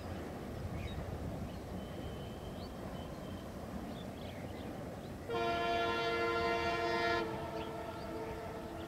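A diesel locomotive hauling a passenger train sounds its air horn in one blast of about two seconds, starting about five seconds in, over the low rumble of the moving train.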